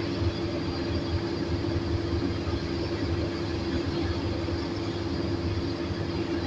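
Diesel engine of a heavy earthmoving machine running steadily, with a constant low hum and a steady mid-pitched drone over the mechanical noise.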